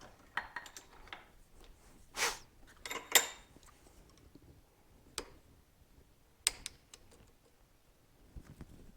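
Small metal parts and tools clinking and clattering as they are handled and set down: a cluster of clatters in the first few seconds, then single sharp clinks about five and six and a half seconds in.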